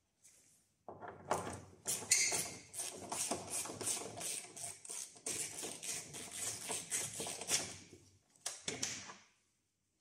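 Hand screwdriver unscrewing a headlight mounting bolt, a rapid, uneven run of clicks that starts about a second in and stops shortly before the end.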